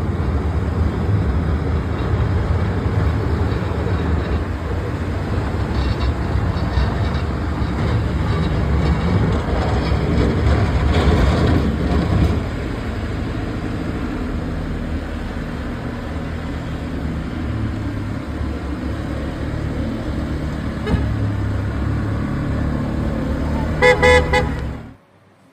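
Street traffic noise with the steady rumble of vehicles, and a short, repeated car horn honk near the end.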